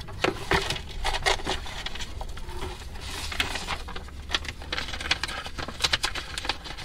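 Paper rustling and crinkling as a sheet is picked up and handled, in many quick irregular crackles, over a low steady hum.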